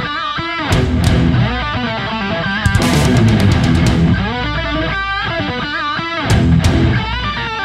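Loud rock music with electric guitar and drums, the guitar playing a bending lead line over heavy strummed chords.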